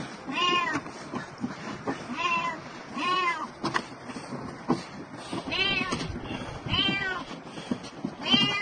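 A cat trapped under a metal roof ridge meowing in distress: about six drawn-out meows, each rising and then falling in pitch, with a few sharp knocks between them.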